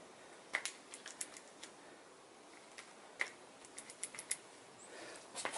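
Light, irregular clicks and ticks of small metal tools being handled, with a quick run of them about four seconds in.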